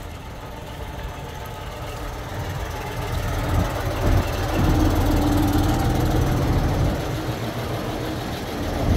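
A heavy truck engine running under load, most likely the crane truck hoisting a wrecked car. A low rumble grows louder about three to four seconds in, with a steady hum held for a few seconds after that.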